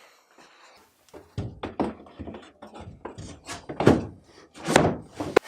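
Wooden box being handled and knocked against the work surface: a string of irregular thunks and knocks starting about a second in, the loudest two about four and five seconds in, with a sharp click near the end.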